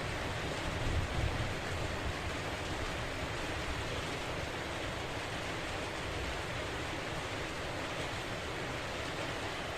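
Steady hiss of heavy rain falling, with a low rumble underneath that swells briefly about a second in.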